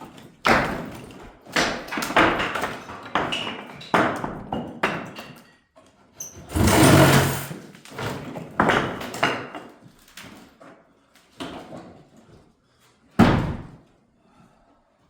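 Repeated heavy blows and bangs on an old wooden staircase being knocked apart, with a longer, louder crash about seven seconds in as material breaks loose and falls.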